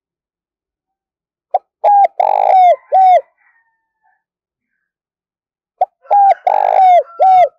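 Spotted dove cooing close up: two calls, each a short run of four or five coos, the first about a second and a half in and the second near the end.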